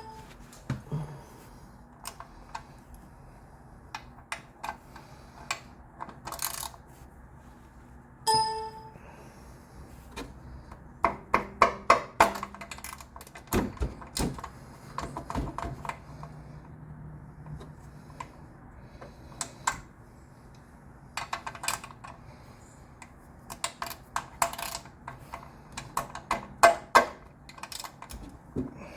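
Cap-type oil filter wrench on a 3/8-inch ratchet and extension working at a stuck oil filter: runs of ratchet clicks and metal knocks as the wrench slips, with two short ringing metal clinks, one at the start and one about eight seconds in.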